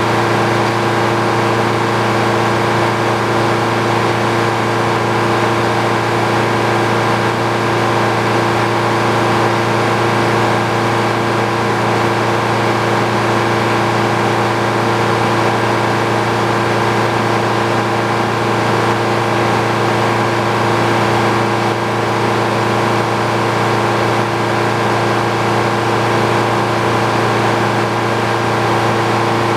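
Frick OO circular sawmill running at a steady, unchanging pitch, its power unit and spinning saw blade making a constant mechanical hum.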